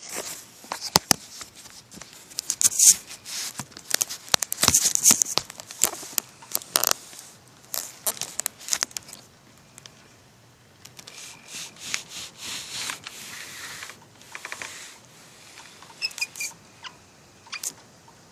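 Sharp, irregular clicks and crackles right at the phone's microphone, densest in the first half, with a softer hiss between them later on and a few short high chirps near the end.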